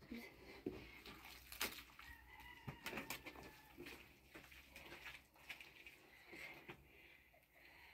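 Near silence with faint scattered clicks and taps, and a faint thin high tone in the middle.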